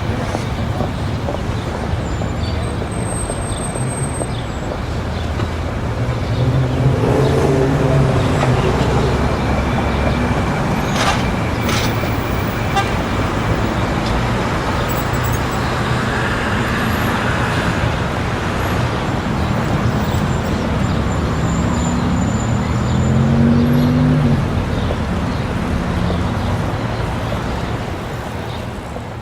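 Busy city street traffic: a steady roar of passing cars, with two vehicles' engines swelling louder as they pass, about a quarter of the way in and again past the middle. A few faint clicks mid-way, then the traffic fades near the end.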